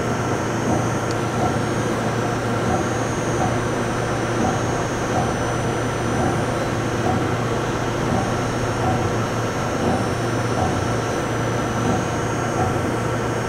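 Okuma & Howa Millac 561VA CNC vertical machining center running a program: a steady machine hum with its spindle turning at about 1,000 rpm, and a regular pulse a little more than once a second as the axes make short repeated moves.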